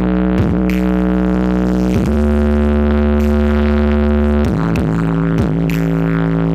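A large sound system playing loud sound-check music: deep held synth tones with stacked overtones, each held for a second or two before sliding down or up to the next pitch.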